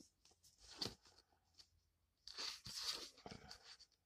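Faint paper rustling as a book's pages are leafed through: one brief rustle near the first second and a longer stretch of rustling about two to three and a half seconds in.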